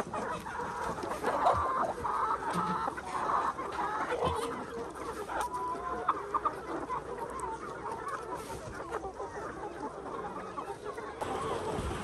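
A large flock of free-range chickens clucking, many short calls overlapping one another.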